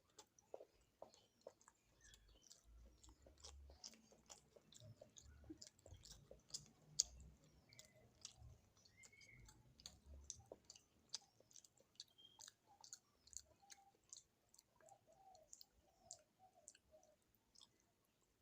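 Close-miked chewing of a rice-and-curry meal, with many quick, irregular wet mouth clicks and smacks.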